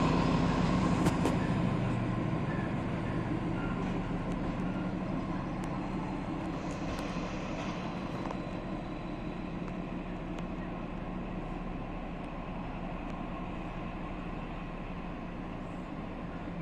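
Diesel locomotive engine running with a low drone that fades steadily as it moves away, over general rail-yard background noise.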